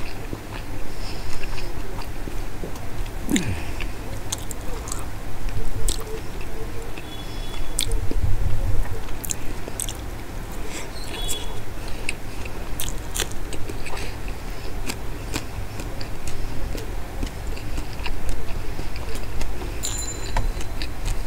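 Close-miked chewing and wet mouth sounds of someone eating rice mixed with shredded Bombay duck (lote fish) curry by hand, with many scattered sharp smacks and clicks.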